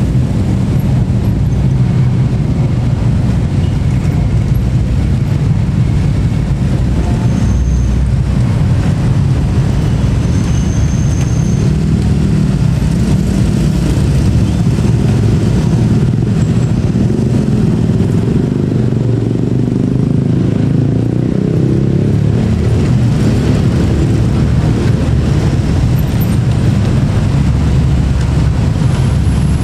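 Many motorcycles and scooters running together: a steady low rumble of small engines.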